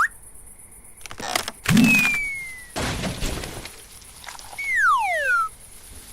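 Cartoon sound effects: a few sharp knocks, then a loud breaking crash with a deep thud, a second crash, and one long tone gliding steeply downward in pitch.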